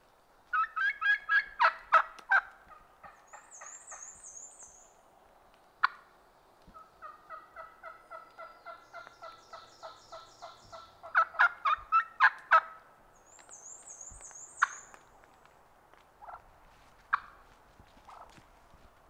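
Wild turkey hen giving loud, rapid, rattling gobble-like calls, in two loud bursts near the start and about eleven seconds in, with a softer run of evenly paced notes between them. A small bird trills high and briefly twice, and a few sharp snaps sound.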